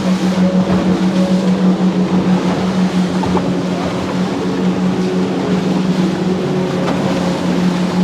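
An engine running steadily: a constant low hum under a steady rushing noise.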